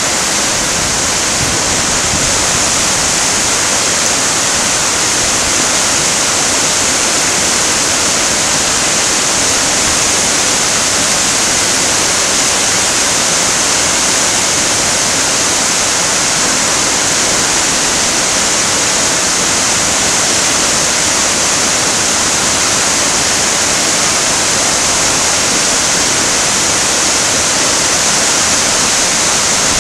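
River rapids and a small waterfall rushing over rocks in heavy white water: a loud, steady roar of water.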